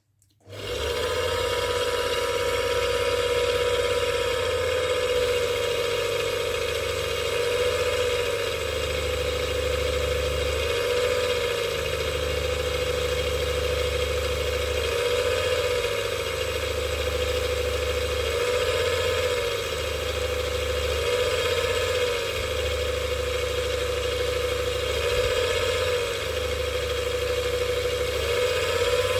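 Electric motor of a Präzima Z5 watchmaker's lathe switching on about half a second in and then running with a steady whine. The pitch wavers briefly every three to four seconds while a small drill in the tailstock is fed into a brass rod.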